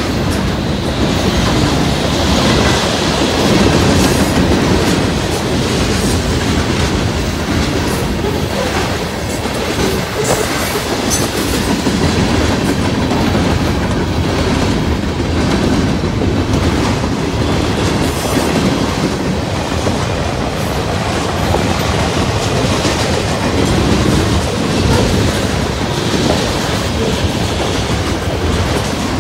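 Freight cars of a Norfolk Southern train, boxcars and hoppers, rolling past at steady speed. Their steel wheels keep up a constant rumble, with clicks as they run over the rail joints.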